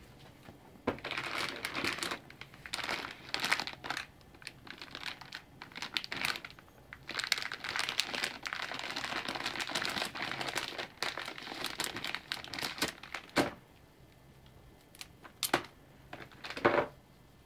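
Thin plastic accessory bag crinkling and rustling as SATA cables are handled and pulled out of it. The crinkling comes in irregular spells for most of the time, then a few separate crackles near the end.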